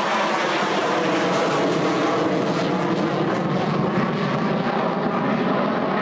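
Airplane engine noise from a fixed-wing aircraft flying at an airshow, a loud steady drone.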